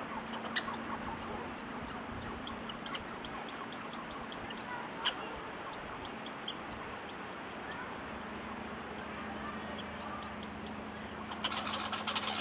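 A high chirp call repeated about three to four times a second in two long runs, with a short pause between them. Near the end a louder scratchy rustle comes in.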